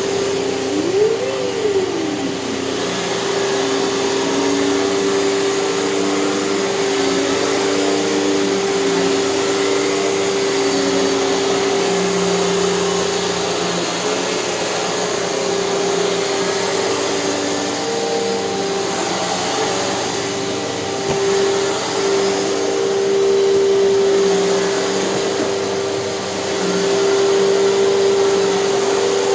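Hoover canister vacuum cleaner running with its power nozzle, a steady motor whine with a strong held tone. About a second in, the pitch briefly rises and falls, and the level dips and swells a little as the nozzle is moved.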